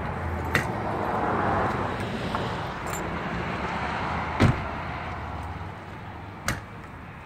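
Background road-traffic noise, a vehicle swelling and fading in the first couple of seconds, with a few sharp clicks and one louder knock about halfway through.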